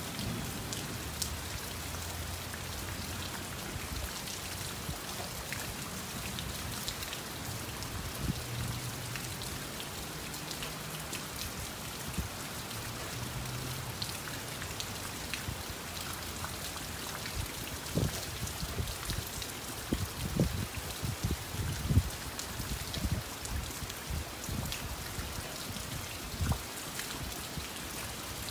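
Steady summer rain falling, with single heavy drops hitting close by. The drops are loudest a little past the middle.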